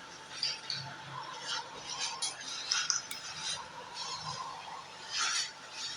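Intensive care unit ambience: irregular small clinks and rattles of equipment over a faint steady electronic tone that swells briefly a couple of times.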